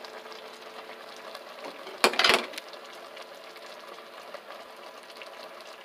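Steady hum over a simmering pot of soup, with one short clatter at the stainless steel pot about two seconds in as green chili is tipped in from a bowl and pushed with chopsticks.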